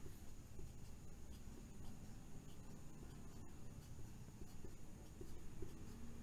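Faint writing sounds: a pen scratching and tapping as a diagram is drawn, over a steady low room hum.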